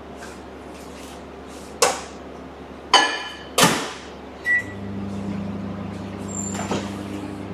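Microwave oven being used: a few door clunks, one short keypad beep, then the oven starts and runs with a steady low hum as it heats the chocolate for 30 seconds.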